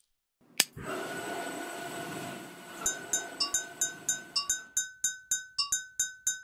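A metal spoon tapping a cut-glass tumbler over and over in a steady rhythm, about four bright clinks a second, starting about three seconds in. Before it come a single sharp click and about two seconds of steady whirring noise.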